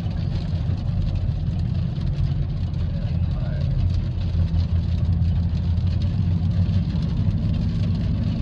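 Steady low engine and road drone heard from inside a moving vehicle's cabin.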